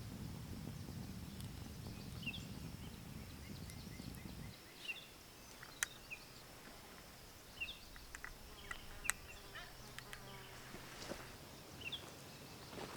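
Forest ambience: small birds chirping now and then over a faint steady insect hum. A low rumble stops suddenly about four and a half seconds in, and scattered sharp clicks and taps follow.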